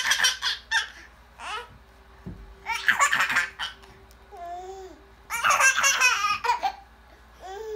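Baby laughing in three loud bouts of giggling laughter, each a second or so long, with short quiet gaps between.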